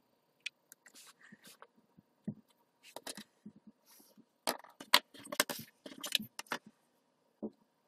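Small craft-wood blocks and hand tools being handled on a cutting mat: irregular light taps, clicks and short scrapes as pieces are set down and a pencil marks the wood. The handling is busiest and loudest just past the middle.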